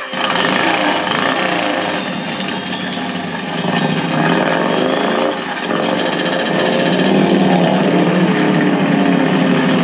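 Engines running and revving, their pitch rising and falling. About six seconds in, a rapid high electronic beeping joins them.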